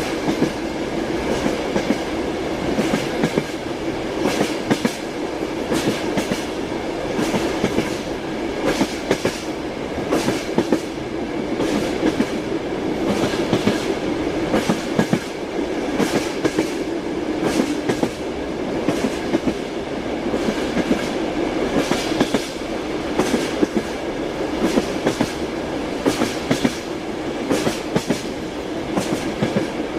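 Train running along the track: a steady rolling rumble with the wheels clattering over the rail joints in frequent, irregular clacks.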